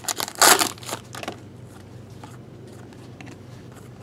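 Foil wrapper of a baseball card pack crinkling as it is pulled open and the cards are slid out, a few rustles in the first second or so.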